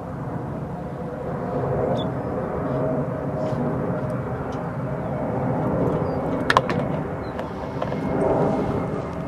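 Steady low rumble of distant engine noise with a faint wavering hum, swelling twice, and a single sharp click about six and a half seconds in.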